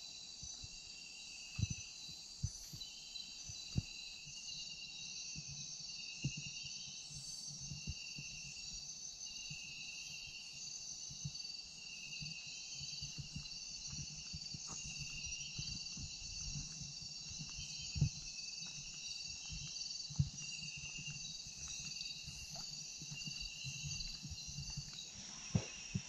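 Rainforest insect chorus in the dark before dawn: several steady high-pitched shrilling tones with a pulsing trill that repeats about once a second, over soft irregular footsteps on a walkway and a few sharp knocks. The chorus cuts off abruptly near the end.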